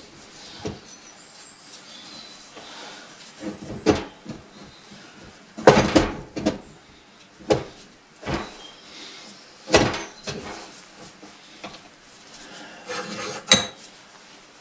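Irregular metal knocks and clatter as the David Brown 996's cast hydraulic valve chest is handled and shifted about. There is a rattling cluster about six seconds in and a sharp knock near the end.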